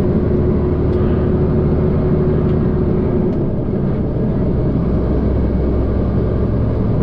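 Semi-truck engine running on the road with tyre and road noise, a steady low drone. About three seconds in, a steady hum drops out and the low engine note changes.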